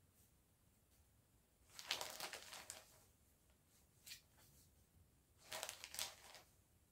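Balls of yarn being handled and pushed onto a shelf: two short bursts of soft rustling and crinkling, with a single light click in between.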